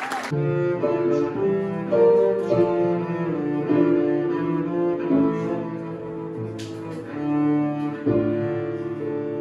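Cello bowed by a young student, playing a slow melody of held notes, each lasting about half a second to a second. It starts a moment in, as the last clapping dies away.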